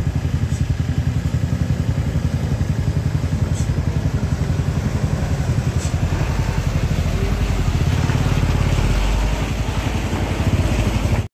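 Mitsubishi Colt Diesel truck's turbo-diesel engine pulling under load up a loose gravel slope, a steady rapid throb that grows deeper as the truck passes close by near the end.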